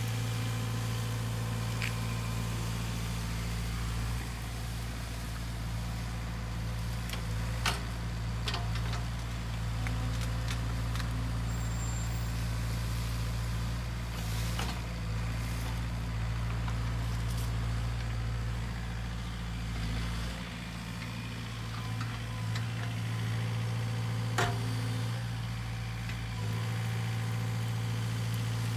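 Diesel engine of a Sany SY50U mini excavator running steadily as the machine works, with a handful of sharp knocks scattered through.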